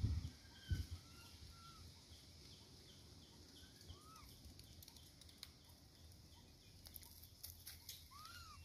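Faint outdoor ambience with a few short bird chirps and a light regular ticking, after some low thumps in the first second.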